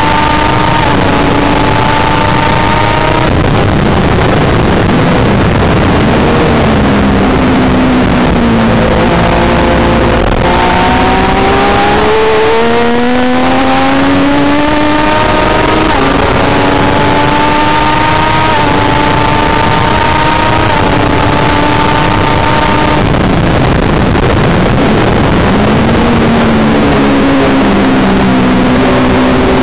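Triumph Daytona 675's inline-three engine running hard on track, its pitch climbing and falling with the throttle and gear changes: it drops off about three seconds in, climbs steadily from about ten to sixteen seconds, then cuts off again a few seconds before the end. Heavy wind rush over the on-board camera runs underneath throughout.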